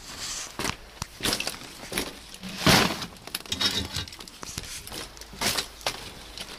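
Paper sack of charcoal rustling and crinkling as it is carried and set down, with scattered knocks and one louder knock a little under three seconds in.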